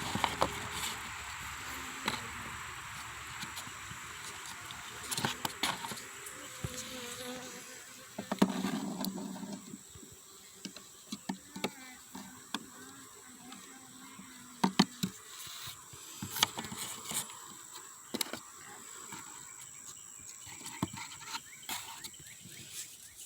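Honey bees buzzing around an opened hive, with one passing close and louder about eight seconds in. Scattered light clicks and knocks are heard throughout.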